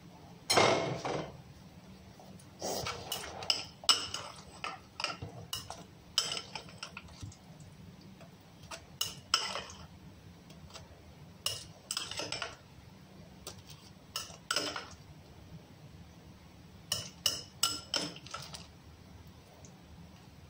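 A table knife scraping mashed avocado across dry whole-grain toast and clinking against a glass bowl as it scoops more. The scrapes and clinks come in short, uneven runs throughout.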